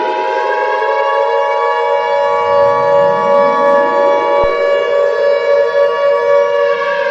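Emergency Alert System attention signal, a steady two-tone beep, sounding together with a civil defense siren that winds up in rising sweeps and holds a steady wail. The two-tone beep cuts off about four and a half seconds in while the siren carries on.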